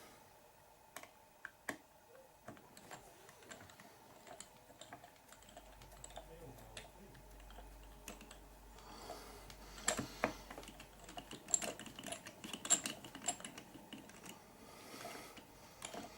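Scattered light clicks and taps of small plastic RC kit parts, screws and hand tools being handled during assembly, busiest in a flurry past the middle.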